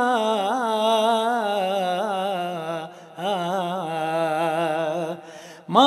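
A priest sings a church hymn as a solo male voice, drawing one syllable out in a long, wavering, ornamented melodic line. He breaks off briefly about three seconds in, sings on, and the phrase fades out near the end.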